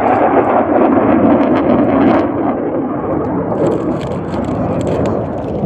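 F-16 fighter jet's engine noise as it flies past and away: a loud, steady rush that eases a little after about two seconds.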